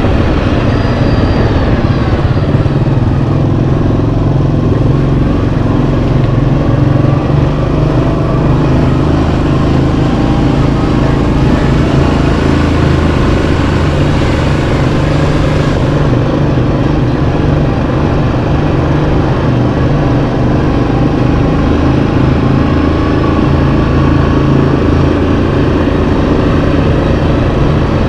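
Yamaha Kodiak 700 ATV's single-cylinder engine running steadily as the ATV is ridden, its pitch rising and falling a little with the throttle.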